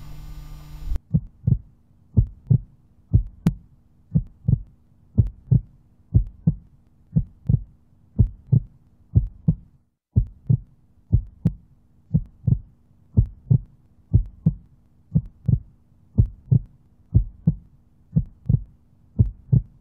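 A heartbeat-like sound effect: paired low thumps, about one pair a second, over a faint steady low hum. For about the first second there is a steady hum, before the thumps begin.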